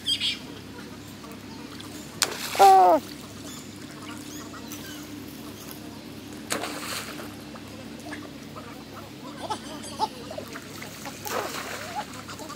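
Animal calls: one loud call falling in pitch about two and a half seconds in, with fainter, shorter calls scattered through the rest.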